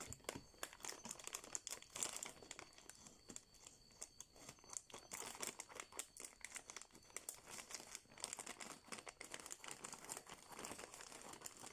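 A courier parcel's packaging being opened by hand: quiet, irregular crinkling and tearing that goes on the whole time.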